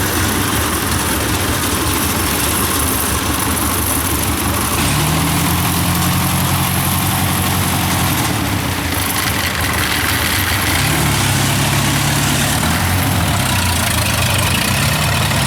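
Engine of a heavy tracked rice-harvesting machine running steadily, its revs rising and falling back three times.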